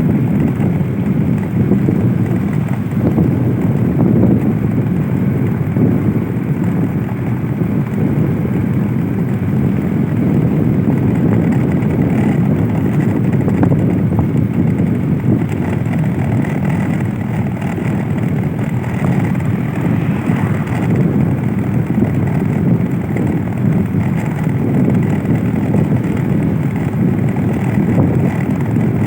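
A steady, loud engine drone with wind noise on the microphone.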